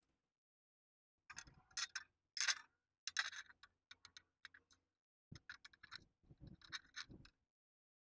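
Small metal bolts, nuts and brackets clicking and scraping as they are fitted together by hand, with quick irregular ticks in two spells and a short pause between them.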